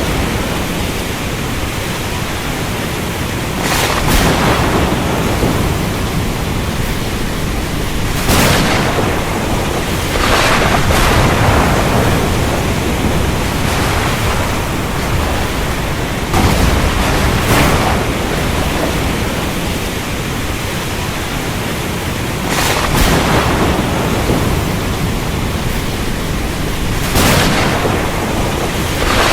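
Thunderstorm: steady heavy rain with sharp thunder cracks every few seconds, some coming in quick pairs.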